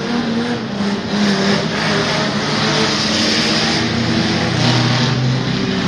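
Several race-car engines running at once as a pack of stock cars laps the oval track. One lower engine note comes through louder about four seconds in.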